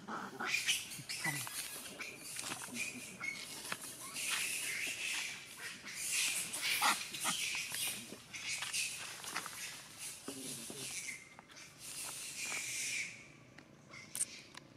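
Long-tailed macaques shrieking and scampering through dry leaf litter in a scuffle, in harsh, high-pitched, noisy bursts; the commotion dies down about 13 seconds in.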